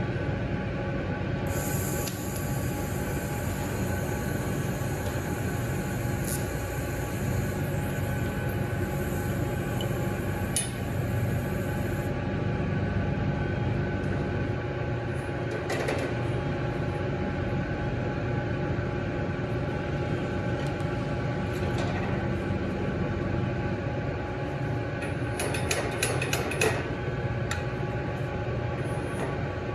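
TIG torch hissing for about ten seconds while a stainless pipe joint is fused, cutting off sharply, over a steady mechanical hum of shop equipment. Light metal clicks and taps follow as a level and an adjustable wrench are set on the pipe and coupling.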